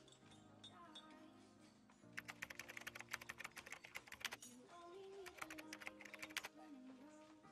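Laptop keyboard typing: a fast run of key clicks about two seconds in, and a shorter run past the five-second mark, over soft background music.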